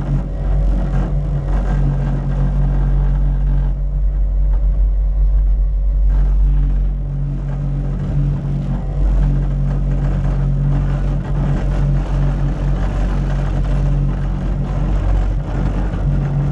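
Cat 289D3 compact track loader's four-cylinder diesel running steadily at working speed, a deep, even drone with no let-up.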